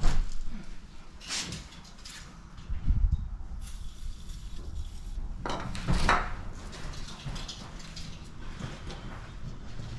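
Scattered clanks and knocks of metal tools and parts being handled during suspension work, with a low thump about three seconds in and a louder clatter about six seconds in.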